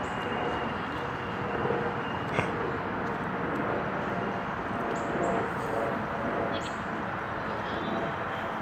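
Steady city street noise, mostly the wash of passing traffic, with a few faint short high chirps about five to seven seconds in.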